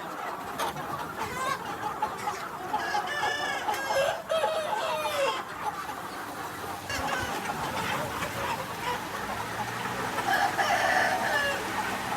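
A flock of Vietnamese Mía chickens clucking and calling over one another, with a rooster crowing. A low steady hum comes in about halfway through.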